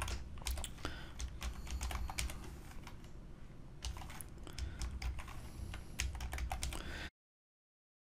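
Typing on a computer keyboard: a run of quick key clicks with a brief lull midway, stopping abruptly about seven seconds in and leaving dead silence.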